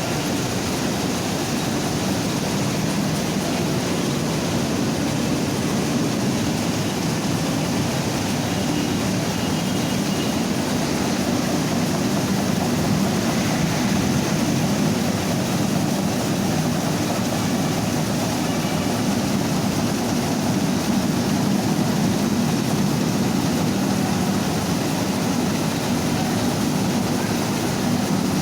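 Mini rice milling machine running steadily: a loud, even mechanical drone with a hiss above it, unchanging throughout.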